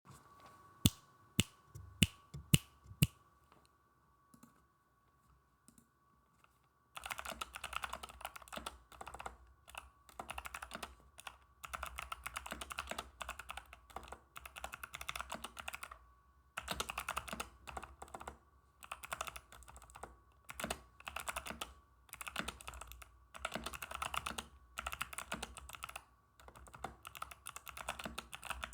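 Mechanical keyboard with unlubed Kailh Box White clicky switches being typed on. A handful of sharp single clicks in the first three seconds, a short lull, then fast continuous typing in runs broken by brief pauses.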